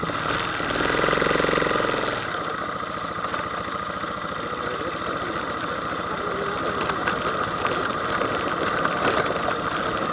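ATV engine running, revving up briefly about a second in and then settling back to a steady run, with scattered light knocks and rattles.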